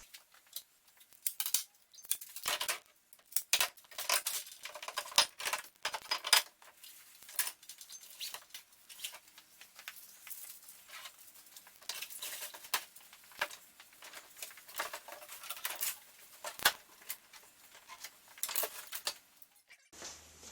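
Irregular clicks, knocks and clattering of a fold-up kayak's hull segments and hinges being handled and folded back together, with many sharp taps and a few louder knocks.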